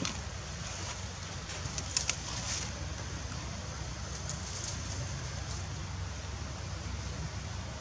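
Forest ambience with birds calling over a steady high hiss, and a few sharp cracks about two seconds in from a macaque pulling at twigs and leaves in the undergrowth.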